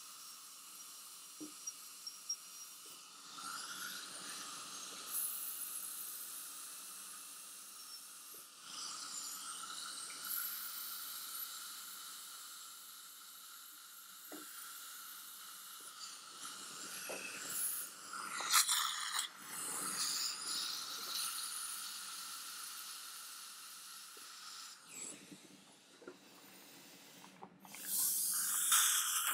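High-speed dental handpiece with water spray running a fine finishing bur on a front-tooth crown preparation: a steady hiss with a whine, stopping and restarting several times.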